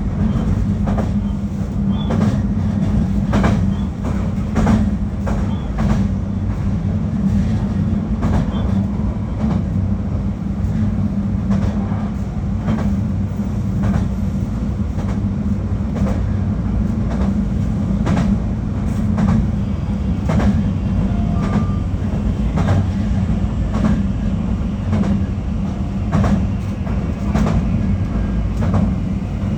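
JR Kyushu 821 series electric train running at speed, heard from inside the car: a steady low running hum with repeated clickety-clack of the wheels over rail joints, the clicks often coming in pairs.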